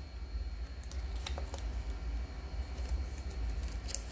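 A few light clicks and taps from trading cards and rigid plastic top loaders being handled, over a low steady hum.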